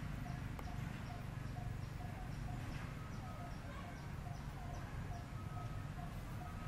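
Birds calling in the background: a short low note repeated evenly, a little over two a second, with short high chirps in step with it, over a steady low rumble.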